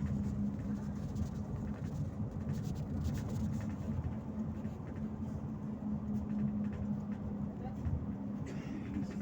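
Steady drone of a Volgabus-5270.G2 compressed-natural-gas city bus heard from inside the cabin while under way, with road noise and light rattles of the body.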